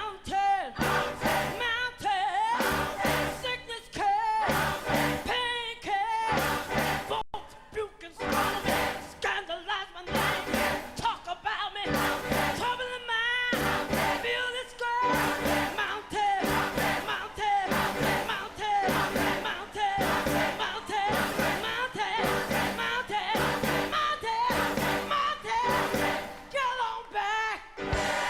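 Gospel choir singing with a live band, a steady beat underneath.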